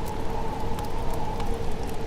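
Wood fire crackling: scattered sharp pops over a steady low rumble, with a faint steady whine underneath.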